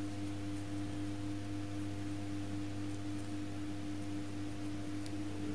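A steady hum made of several constant tones, with nothing else standing out over it.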